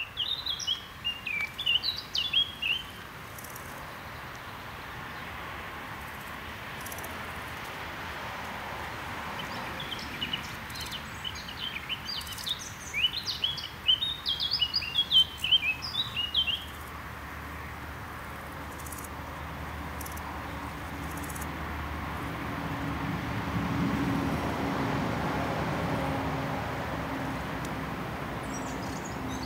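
Songbird singing in quick chirping phrases, once near the start and again from about ten to seventeen seconds in, over a steady outdoor background hiss. In the last third a low steady drone swells and holds.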